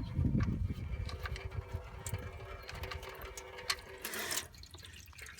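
Used engine oil pouring from the open oil-pan drain hole into a drain pan, a steady stream splashing into the pan. A brief rush of noise about four seconds in.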